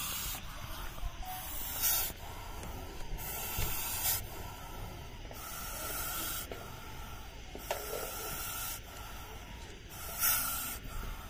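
Juvenile Russell's viper hissing: a series of breathy hisses every couple of seconds, the strongest about two, four and ten seconds in. It is a defensive warning from a snake coiled tight.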